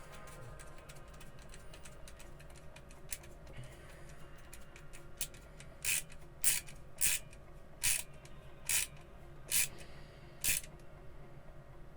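Screwdriver driving the last screw into a 3D-printed plastic mouse shell: a few faint ticks, then about seven short scraping strokes in the second half, each under a second apart, as the screw is turned home.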